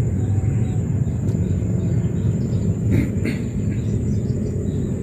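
Steady low outdoor rumble, with a thin steady high whine and faint small chirps over it, and a couple of soft clicks about three seconds in.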